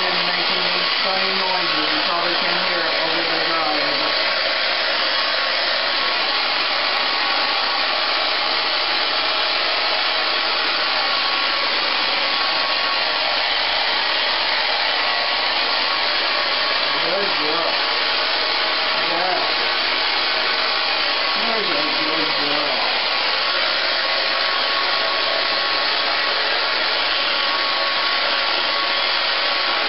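Handheld electric hair dryer blowing steadily on a small dog's wet coat, with faint voice-like sounds under it in the first few seconds and again about two-thirds of the way through.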